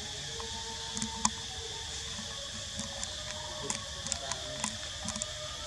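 Steady high drone of insects, with scattered soft clicks and rustles from young macaques grooming each other.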